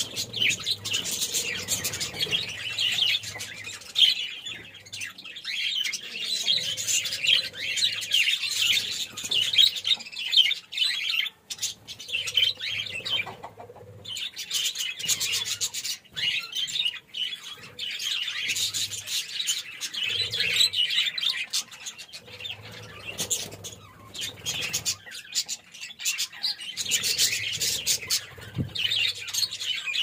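A large flock of budgerigars chattering: a dense, continuous warble of quick high chirps, dropping briefly a little before halfway.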